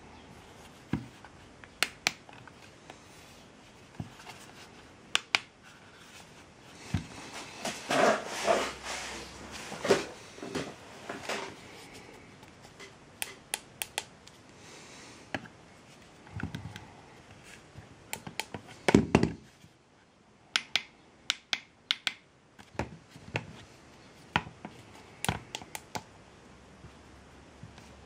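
Scattered sharp clicks and taps of small hard objects being handled, with short clattering runs about eight seconds in and a louder one a little before twenty seconds.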